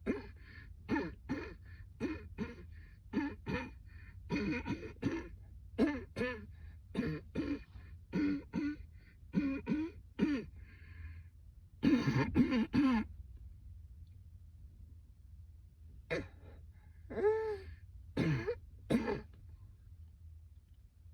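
A woman's persistent coughing fit: a rapid run of harsh coughs and throat-clearing, one or two a second, then a pause of a few seconds and a few more coughs.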